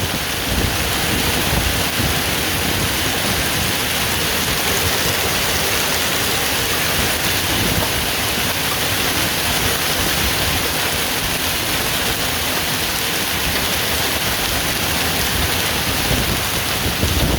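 Hail and heavy rain pelting down in a severe thunderstorm, a steady, dense hiss of impacts.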